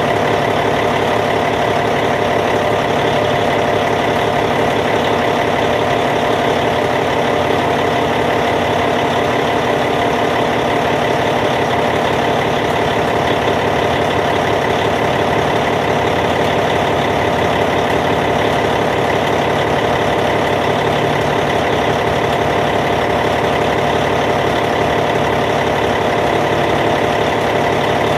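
Caterpillar C15 inline-six diesel engine of a Cat D8T bulldozer idling steadily.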